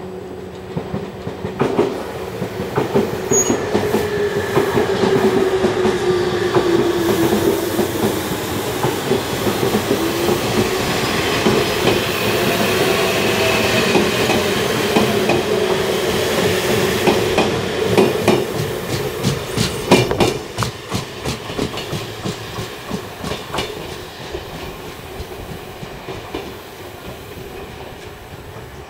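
Chichibu Railway 1000 series electric train (ex-JNR 101 series) pulling away from the station. Its motors whine, shifting in pitch as it accelerates, and its wheels clack over the rail joints as the cars pass. The sound then fades as the train runs off.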